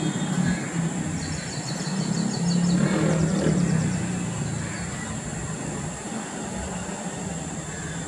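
A low mechanical drone, loudest for the first four seconds and then fading, with a small bird's rapid high trill about one to three seconds in.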